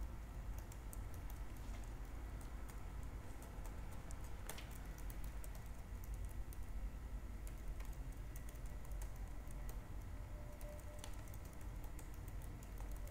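Typing on a computer keyboard: irregular key clicks over a low, steady hum.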